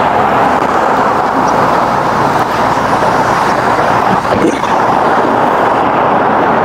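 Steady road traffic noise from motor vehicles.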